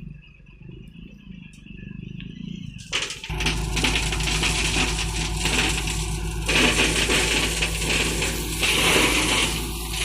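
JCB 3DX backhoe loader at work: a loud rattling, scraping clatter of the bucket on stones and soil sets in suddenly about three seconds in, over the steady hum of its engine.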